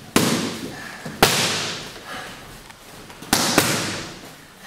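Red boxing gloves punching leather focus mitts: four sharp slaps, one right at the start, one about a second in, then a quick pair past the three-second mark. Each slap rings out with a long echo.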